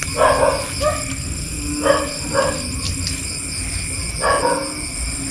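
Short animal calls in pairs, each pair about half a second apart, repeating every couple of seconds over a steady, high-pitched night chorus.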